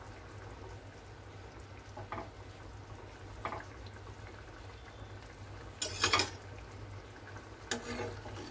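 Egg curry gravy simmering in a kadai over a steady low hum, with a few short scrapes and knocks of a spatula against the pan as half-fried eggs are pushed into the gravy. The loudest knock comes about six seconds in.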